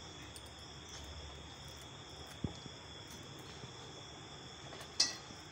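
Crickets trilling steadily in the background, a thin high-pitched drone. There is a soft knock about halfway through and a sharp click near the end.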